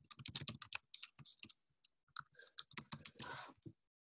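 Typing on a computer keyboard: quick, irregular runs of faint keystrokes, with a short lull about two seconds in.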